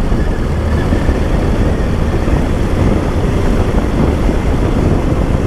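Motorcycle on the move: a steady rush of wind on the microphone with the bike's engine running underneath at an even pace.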